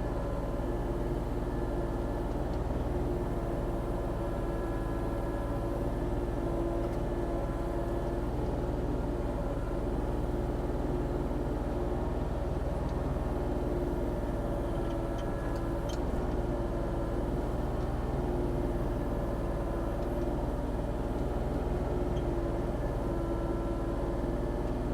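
Volvo ECR40D four-tonne mini excavator's diesel engine running steadily under work, with the faint shifting whine of its hydraulics as it digs.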